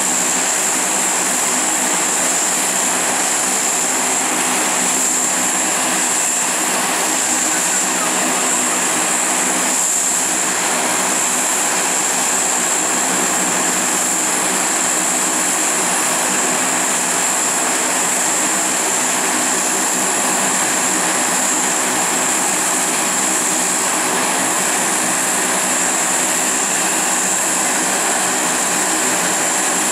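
Lockheed C-130 Hercules's four Allison T56 turboprop engines running steadily as it taxis: a constant high-pitched turbine whine over a droning stack of propeller tones.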